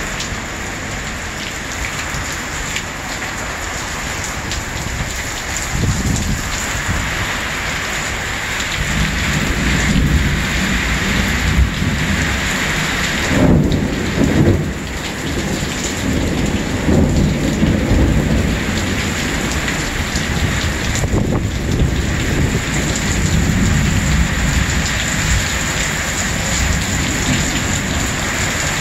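Heavy thunderstorm downpour hissing steadily, with thunder rumbling low. The rumble builds about a fifth of the way in and is loudest near the middle, then eases off.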